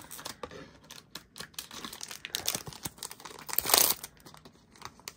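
Foil trading-card booster pack wrapper crinkling as it is handled, then torn open with a short, loud rip about three and a half seconds in.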